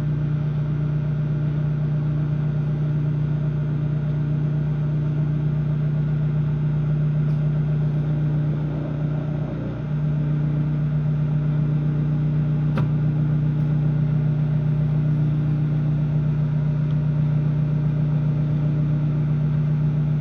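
Microwave oven running: a steady low electrical hum, wavering briefly about halfway through, with one faint tick later on.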